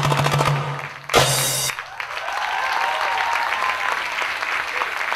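Fast Middle Eastern drum-solo music ends with a loud final hit just over a second in. Audience applause follows and keeps going.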